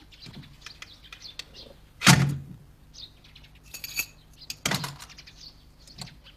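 A wooden panel of a hidden compartment is opened with a heavy wooden thunk about two seconds in. Metal keys jingle as they are lifted out, and a second wooden knock follows. Faint bird chirps can be heard in the background.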